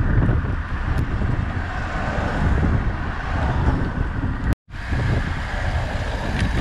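Wind and road noise rushing over a bike-mounted action camera's microphone while riding a road bike at speed, heaviest in the low end. It cuts out for an instant about four and a half seconds in.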